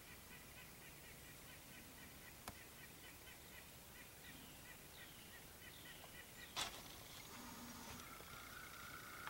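Gray squirrel barking: a faint, rapid series of short chirps, about four a second, with a few drawn-out falling squeals. A single sharp click about two-thirds in, then a thin steady tone near the end.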